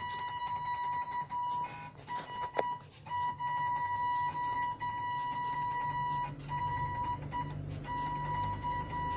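Stepper motors of a small homemade pen plotter whining at one steady pitch as the axes move, stopping and restarting several times, with a sharp click about two and a half seconds in.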